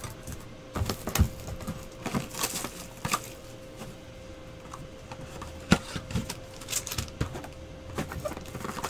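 Sealed cardboard trading-card boxes being handled and unwrapped: irregular taps and knocks of the boxes with crinkles of shrink-wrap being peeled off, over a faint steady hum.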